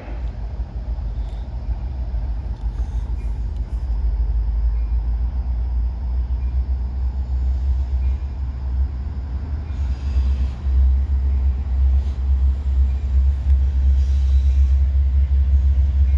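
Deep, steady rumble of an approaching train's diesel locomotives, slowly growing louder.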